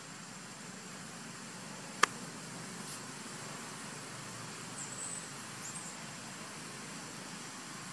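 Steady outdoor background hiss, broken by one sharp click about two seconds in and two faint high chirps about halfway through.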